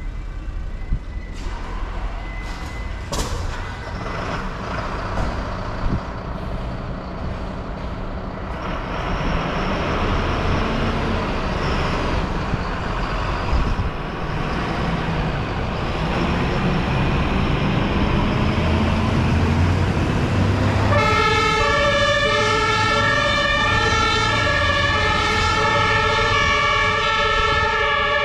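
Fire engine's diesel engine running and pulling away, louder from about nine seconds in, with a few sharp clicks early. About 21 seconds in, a two-tone emergency siren starts and keeps alternating between two pitches.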